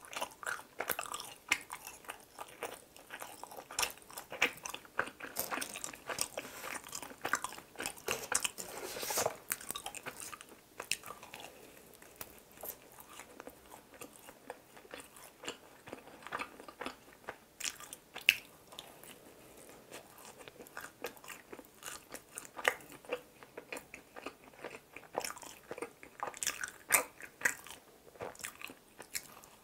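Close-miked biting and chewing of a Krispy Kreme original glazed doughnut: repeated bites and mouth chewing with many small, irregular clicks and crackles.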